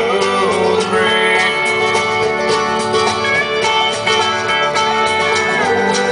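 Background music: a country-style song with guitars.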